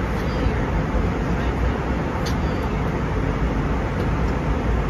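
Steady roar of an Airbus A320 in flight, engines and rushing air heard from inside the cabin at a window seat, with a couple of faint ticks.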